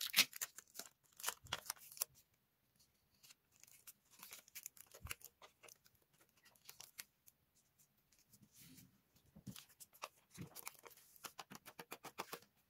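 Paper cutouts being handled and moved about: crackly rustling paper in bursts of quick ticks, busiest at the start and again near the end, with quieter stretches in between.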